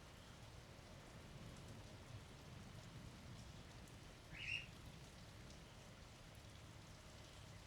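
Faint steady rain falling, recorded during a thunderstorm. About four and a half seconds in comes a single short, high chirp.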